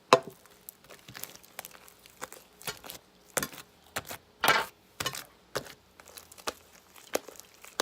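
Homemade glue slime being worked after Tide detergent is added, making irregular sticky clicks and squelches, with a sharp click right at the start.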